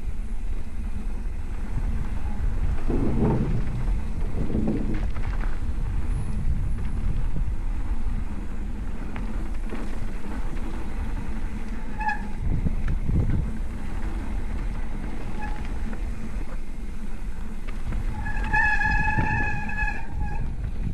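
Mountain bike rolling down a dirt trail: tyres rumbling over the ground with wind buffeting the microphone, rougher for a couple of seconds early on. A short high squeal about twelve seconds in and a steady two-second squeal near the end come from the disc brakes being applied.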